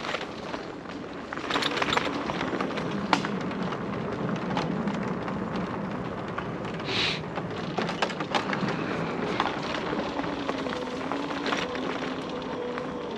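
Electric bike riding over a rough dirt trail: steady tyre noise with frequent clicks and rattles from the bike, over a faint whine that slowly shifts in pitch. A brief high hiss about seven seconds in.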